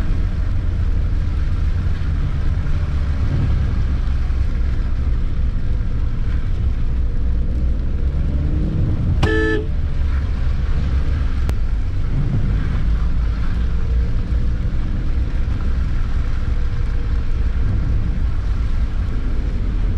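Steady low rumble of a car's engine and tyres on a wet, slushy street, heard from inside the cabin. About nine seconds in, a car horn gives one short toot.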